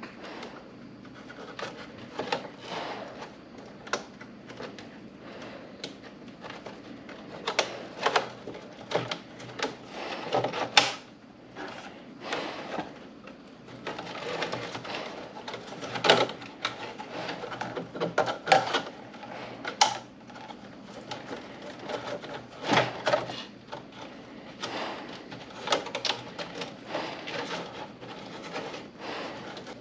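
Stiff plastic downspout sections being handled and fastened together by hand: irregular plastic clicks, knocks and rustles, a few of them sharper and louder.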